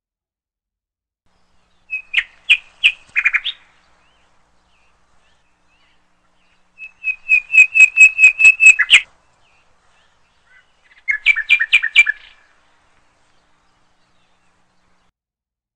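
A songbird singing three short phrases of quick repeated chirps, each a second or two long, a few seconds apart.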